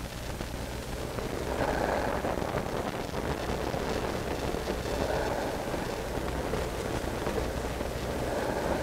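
A person breathing slowly and deeply while lying face down, with three swelling breaths about three seconds apart, over a steady low room hum.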